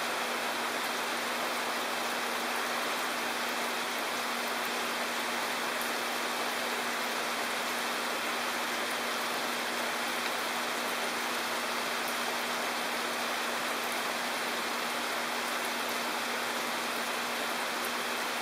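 Steady summer rain falling on open water and the ground, an even, unbroken hiss with no individual drops standing out. A faint steady low hum runs underneath.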